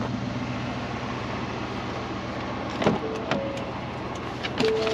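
Truck engine running steadily, with a few sharp knocks or clunks about three seconds in and near the end.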